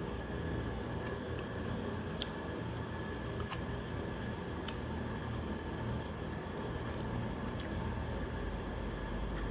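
Someone eating rice and fish curry by hand: soft squishing of the rice being mixed and chewing, with a few faint clicks over a steady low background hum.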